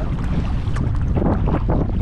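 Wind buffeting the microphone in a steady low rumble out on the sea in a kayak, with several short splashes of water.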